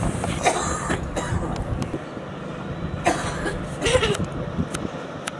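A person coughing a few short times over a low, steady outdoor rumble.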